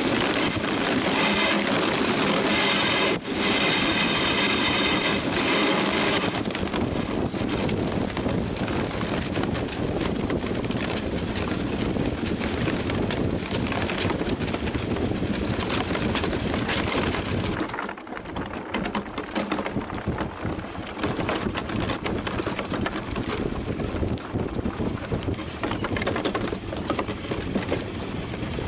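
A DN iceboat's runners rumbling and hissing over the ice at speed, heard through the hull from a camera mounted on the boat. A high ringing tone rides on the noise for the first few seconds; about eighteen seconds in the noise dips briefly, then goes on rougher as the boat slows.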